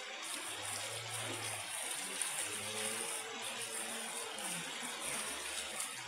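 Fast, shallow river rushing over stones: a steady gush of water.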